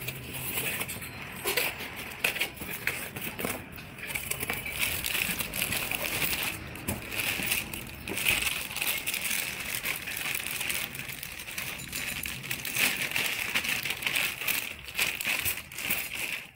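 Clear plastic packaging crinkling and rustling continuously with dense crackles as it is handled, mixed with the scrape and knock of a cardboard box.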